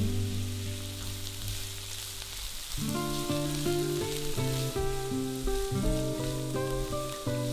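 Diced carrot and onion sizzling in olive oil in a nonstick frying pan, stirred with a spatula in the second half. Background music with plucked notes plays over it.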